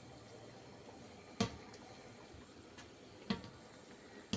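Three short, sharp clicks or knocks over a low, steady background hiss: the loudest about a second and a half in, then two more about a second apart near the end.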